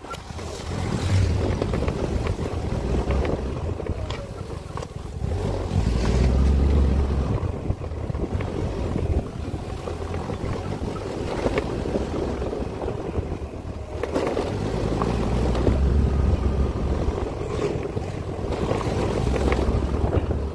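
Wind buffeting the microphone over the rumble of a vehicle on the move along a rough road, swelling and easing in gusts.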